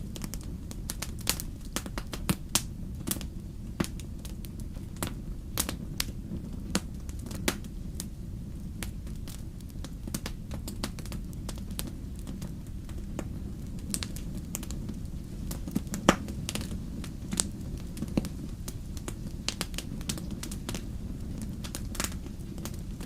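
Wood fire crackling in a fireplace: irregular sharp pops and snaps over a steady low rumble, with one louder pop about two-thirds of the way through.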